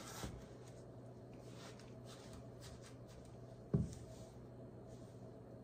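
A spatula stirring and mashing elderberries and sugar in a saucepan: faint, soft scraping strokes, with one louder thump a little under four seconds in, over a faint steady hum.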